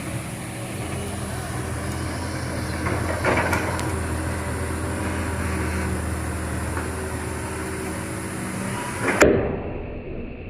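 Excavator's diesel engine running steadily, with a knock about three seconds in and a louder knock near the end, after which the sound turns abruptly duller and quieter.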